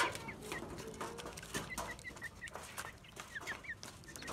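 Chickens and young ducks feeding at a plastic-bottle feeder: many short, high peeps from the flock, mixed with quick clicks of beaks pecking at the feeder.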